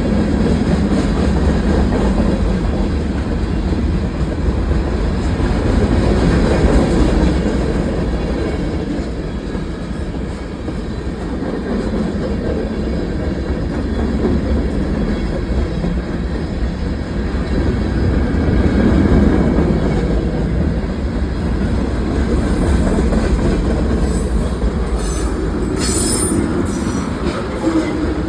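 Cars of a CSX mixed freight train rolling past: a steady rumble of steel wheels on the rails that swells and fades as the cars go by, with some high wheel squeal near the end.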